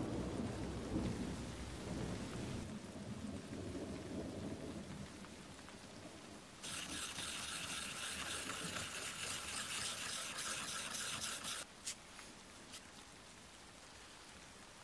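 Thunderstorm sounds: a low thunder rumble that fades away over the first few seconds, then a hiss of heavy rain that starts abruptly about seven seconds in and cuts off about five seconds later, followed by a couple of faint clicks.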